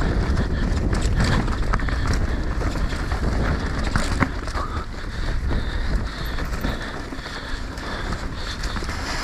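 Mountain bike riding fast down a dirt forest trail: wind buffeting the microphone over the rumble of the tyres on dirt, dry leaves and stones, with the bike rattling and knocking over the bumps, the sharpest knock about four seconds in.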